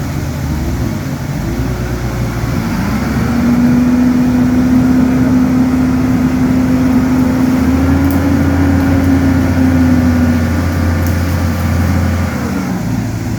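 An engine revs up about two and a half seconds in, holds a steady high pitch for about seven seconds, then drops back near the end, over a continuous low engine rumble.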